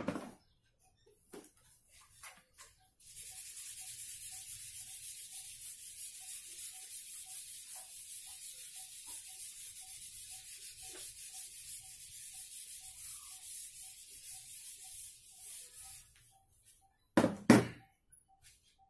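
A board eraser rubbed back and forth across a whiteboard, wiping off marker drawings: a steady scrubbing that starts about three seconds in and stops about three seconds before the end. Near the end come two loud knocks close together.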